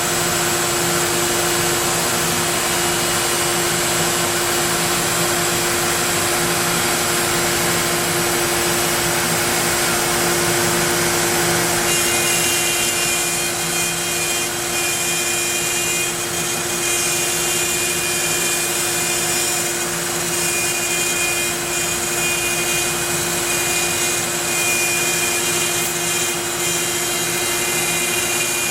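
Onefinity wood CNC router running a job: the spindle motor runs steadily at a fixed pitch over a constant hiss. About twelve seconds in, higher whining tones join and the loudness begins to waver a little.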